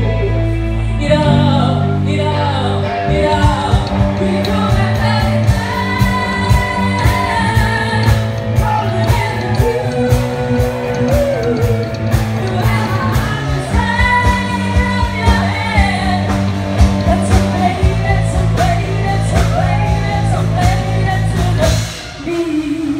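Live band playing through a PA: a woman singing the melody over electric guitar, bass guitar and drums. The song stops near the end.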